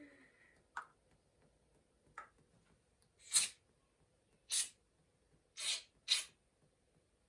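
Aerosol can of foam spraying in four short hissing bursts, the first about three seconds in and the last two close together near the end.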